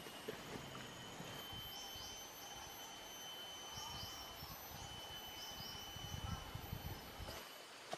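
Forest ambience: insects keep up a steady high drone while small birds give short chirps through the middle. Low rumbling comes in near the end.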